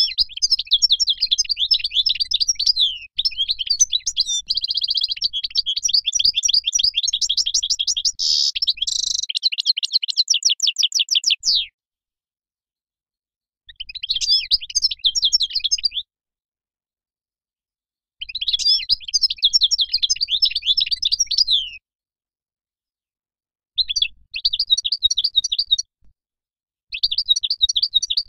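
European goldfinch singing: rapid chirping and twittering notes, first in one long run of about twelve seconds, then in four shorter phrases of two to four seconds with silent pauses between them.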